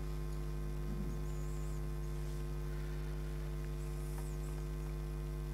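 Steady electrical mains hum with buzzy overtones, picked up in the microphone and sound-system feed.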